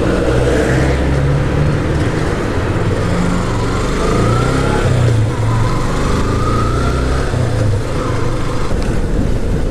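Motorcycle engine running as the bike rides along slowly, its low note stepping up and down with the throttle, under steady road and wind noise. A faint whine rises twice near the middle.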